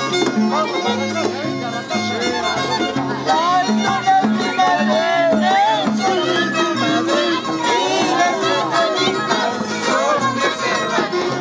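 Andean harp and violin playing a folk tune together: the harp plucks a stepping bass line and chords while the violin carries the melody with slides and vibrato.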